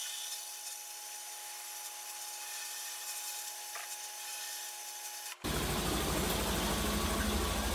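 Blast gun of a vapor blast cabinet spraying against a steel bracket: a steady hiss. About five seconds in it cuts off abruptly, and a louder steady low machine hum takes over.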